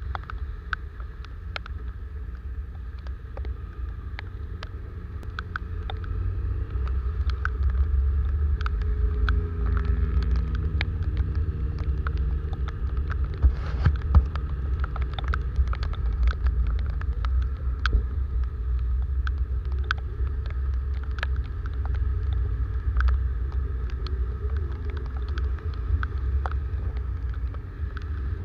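Wind rumbling on the microphone of a motorcycle riding through heavy rain, with raindrops ticking on the camera and tyre hiss on the wet road. About nine to thirteen seconds in, an engine note rises and falls, and around fourteen seconds in there are two loud hits as spray is thrown over the camera.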